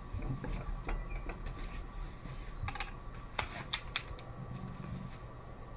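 Air pistol being handled and readied between shots: a few light ticks, then a quick run of sharp metallic clicks a little over three seconds in, the loudest near four seconds.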